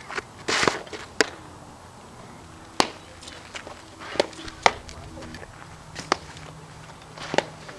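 Fastpitch softball smacking into leather gloves during rise-ball pitching: a sharp pop several times, over low outdoor background noise, with a short rustle about half a second in.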